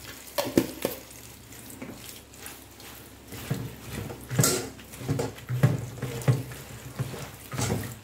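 Tap water running into a bowl of vegetable fern leaves in a stainless steel sink while a hand swishes and squeezes the leaves through the water. Irregular sloshes and splashes come a few times early and then much more often from about three and a half seconds in.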